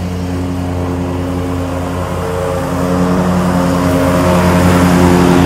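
A motor engine running steadily with an even hum, growing louder over the few seconds and shifting pitch slightly a couple of times.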